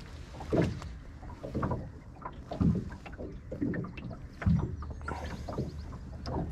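Small waves slapping against the hull of a drifting fishing boat, a dull knock about once a second.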